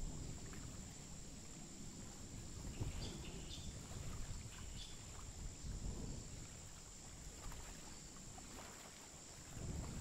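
Low wind rumble on the microphone with a faint steady high-pitched whine, and a few faint high chirps about three and five seconds in.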